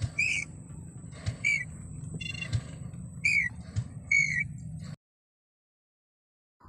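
A bird calling over and over: short, slightly falling call notes about once a second, mixed with buzzy rattling notes, over a low hum. The sound cuts off abruptly about five seconds in.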